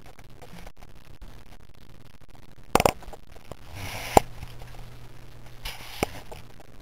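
Handling noise on the camera: a sharp double knock about three seconds in, then a short rustle ending in a click about a second later, and another rustle and click near the end, over a faint steady hum.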